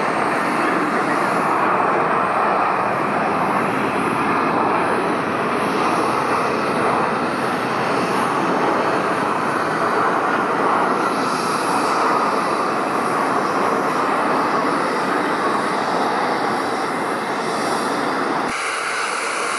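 Jet airliner landing, its engines a loud, steady rush of noise. Near the end the sound changes abruptly to a thinner rush with less low end.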